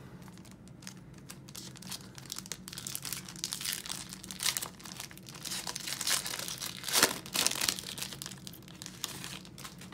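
Foil wrapper of a Panini Cornerstones basketball card pack being torn open and crinkled by hand, a continuous crackling with a louder burst about seven seconds in.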